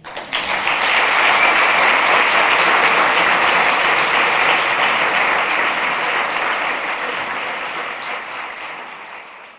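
Audience applauding, the clapping starting right away and fading out gradually over the last few seconds.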